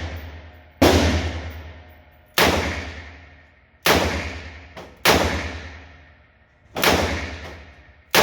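Revolver fired shot after shot in an indoor range: five sharp reports about one and a half seconds apart, with another right at the end, each ringing off in a long echo.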